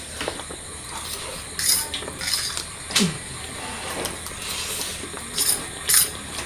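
Cutlery clinking and scraping on plates and dishes as people eat, with several sharper clinks.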